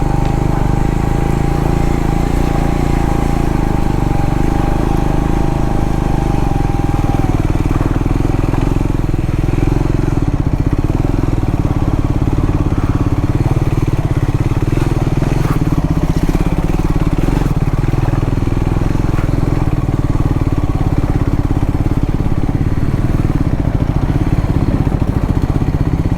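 Triumph Scrambler 400X's single-cylinder engine running steadily under load, a constant drone with no clear revving. A thin steady whine sits over it for the first seven seconds, then stops.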